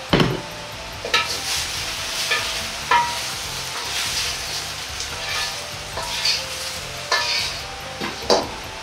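A steel ladle scraping and clanking against a hot wok as the last stir-fried chicken and cucumber pieces are scooped out, over a light sizzle of oil. It gives a series of irregular sharp knocks, the loudest near the start and near the end.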